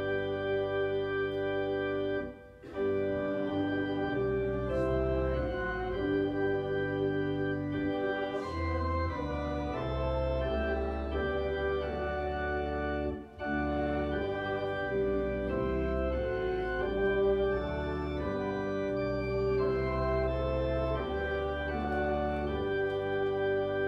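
Organ music: slow held chords that change every second or two, with brief breaks between phrases about two and a half and thirteen seconds in.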